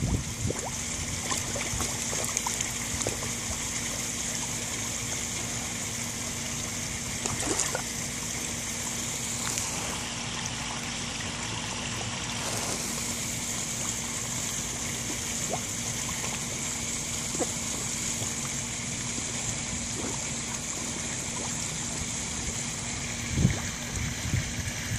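Steady splash of a small stone-wall waterfall spilling into a koi pond, with a faint steady hum beneath. Occasional small splashes and slurps as koi take food at the surface, a few louder ones near the end.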